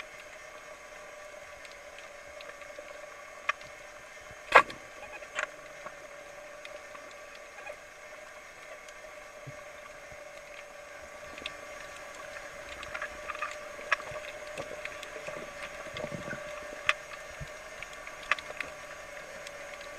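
Underwater ambience: a steady hum with scattered sharp clicks and crackles. The loudest click is about four and a half seconds in, and the crackling gets busier in the second half.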